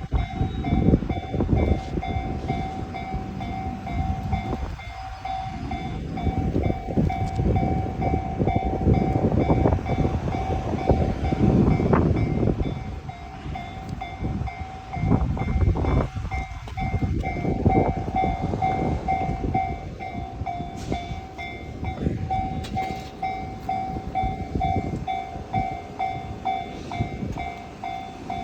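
Japanese railway level-crossing warning bell ringing in a steady, repeating kan-kan while a train passes over the crossing, its wheels clattering on the rails.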